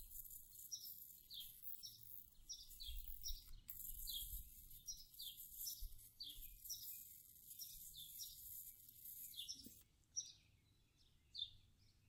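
Plasma arc lighter held arcing against a lump of pine sap to ignite it: a faint, high-pitched hiss that breaks off briefly about a third of the way in and stops suddenly near the end. A bird chirps throughout with short falling notes, repeated every half second or so.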